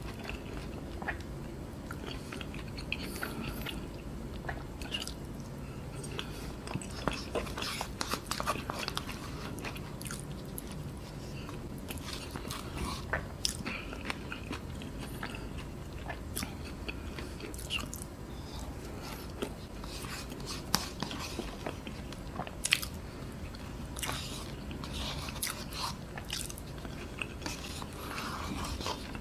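Close-miked chewing and wet mouth sounds of someone eating loaded fries of mashed potato, cheese sauce and popcorn chicken, with many scattered sharp clicks over a low steady hum.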